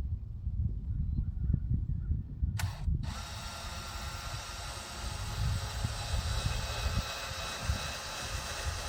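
Cordless drill driving a screw to fasten a coop panel: a short blip about two and a half seconds in, then a steady run for the rest.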